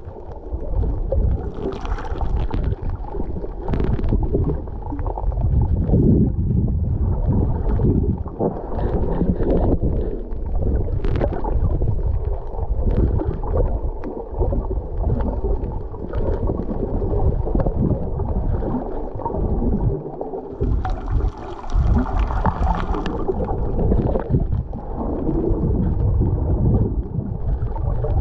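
Underwater sound picked up by a submerged camera while snorkeling: a muffled, fluctuating low rumble and gurgling of water moving over the housing, with a few sharp clicks and a short hissing splash around three quarters of the way through.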